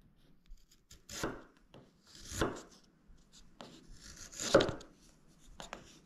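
Hand chisel paring shavings off a spruce violin bass bar blank, trimming away the excess toward a traced line. Three main slicing cuts come about a second or two apart, with lighter strokes between them.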